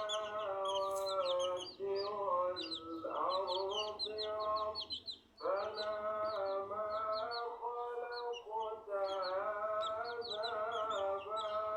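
Many Hijazi chicks peeping, with short high cheeps coming rapidly and continuously. Under them runs background music with a long-held, gliding melodic line.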